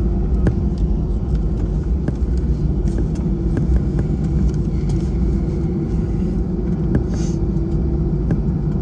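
Inside the cabin of an Airbus A320-family airliner taxiing: steady jet engine and cabin rumble with a low hum, and a few faint clicks.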